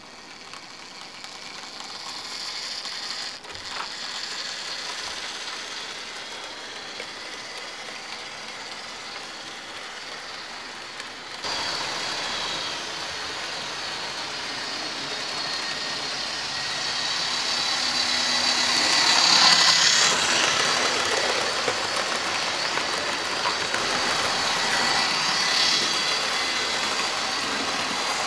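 Model railway train running on its track, a steady mechanical running sound of motor and wheels. There is a sudden step up in level about 11 seconds in, and it is loudest about two-thirds of the way through as the train passes close.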